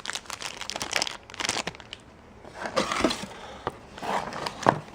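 Packaging crinkling and rustling in irregular crackles as cables and a charging brick are unpacked, with a few sharp clicks near the end.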